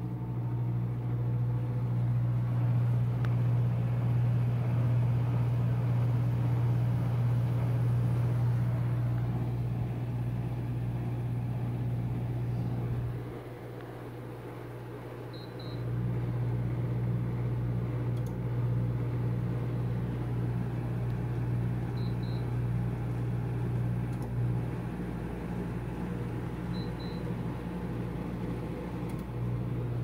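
2013 Friedrich Kuhl 14,000 BTU window air conditioner running with a steady low hum. About halfway the hum drops away for a couple of seconds, then comes back. The unit gives three short high double beeps several seconds apart, acknowledging button presses from its remote.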